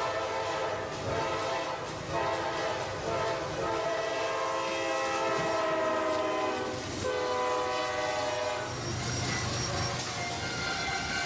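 Freight locomotive air horn sounding a series of long warning blasts for a road crossing, several tones at once, with short breaks about two and seven seconds in. A low rumble from the passing train comes in near the end.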